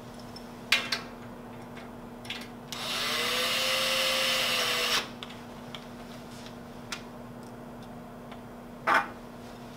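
Cordless drill/driver running for about two seconds, driving a T30 Torx screw to fasten a hinge body to the steel enclosure frame; its motor pitch rises, holds and drops away as it stops. A few light clicks come before it, and a sharp clack comes near the end.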